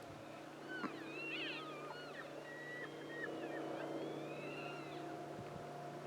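Several elk calling in the distance: high, overlapping whistling bugles and squeals that slide up and down in pitch, fading out near the end.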